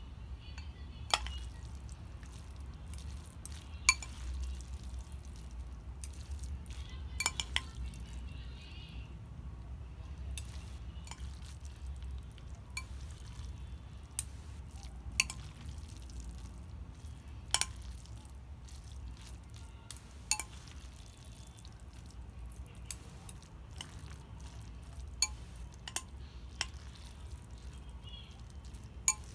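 Eating utensils clinking sharply against dishware at irregular moments, about fifteen times, over a steady low hum.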